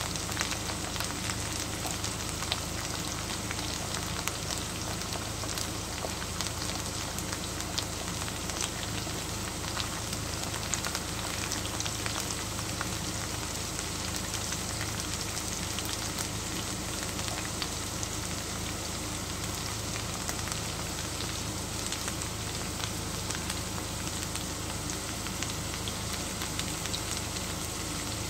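Potato wedges and sticks shallow-frying in oil in a frying pan: a steady sizzle full of fine crackles and pops.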